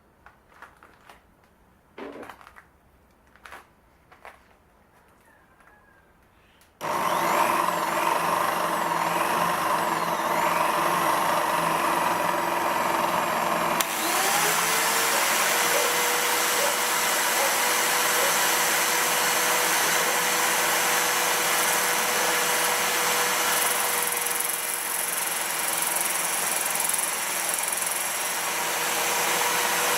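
A few faint clicks, then a homemade centerless grinder switches on abruptly and runs loud and steady. About halfway through, a second whine rises in pitch and then holds steady over the motor noise.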